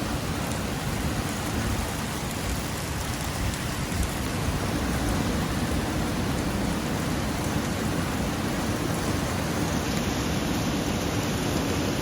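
Heavy rain pouring down steadily in a thunderstorm downpour.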